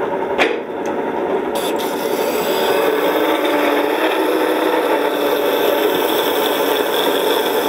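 Half-century-old DoAll contour bandsaw cutting through metal bar stock, a steady rasping saw noise. The sound brightens about a second and a half in.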